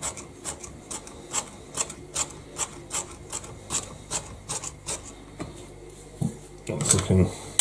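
Chef's knife chopping minced garlic and ginger on a plastic cutting board, in steady taps about two to three a second, then a louder scrape of the blade on the board near the end.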